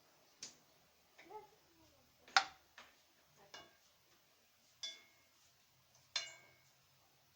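Kitchenware being handled while cooking: about six separate clinks and knocks, some ringing briefly, the loudest about two and a half seconds in.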